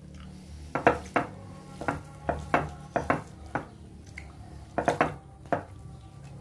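Cutlery clinking and scraping against a plate while eating: about a dozen irregular sharp clinks, some ringing briefly.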